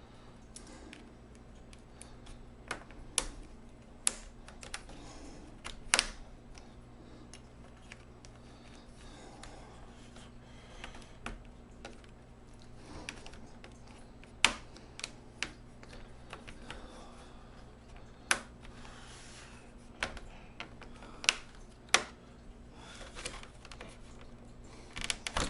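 Scattered sharp plastic clicks and taps from prying at the snap-fit bottom cover of a Dell Inspiron 17 5767 laptop, as the clips resist coming apart, over a faint steady low hum.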